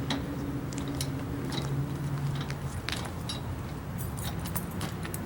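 Light metallic clicks and jingling, like small metal objects or keys being handled, over a steady low hum.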